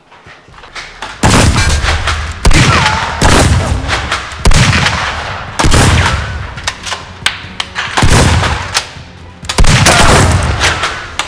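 Rapid gunfire sound effects for toy blaster shots, about six volleys. Each volley starts with a sharp crack of rapid shots and trails off over a second or so.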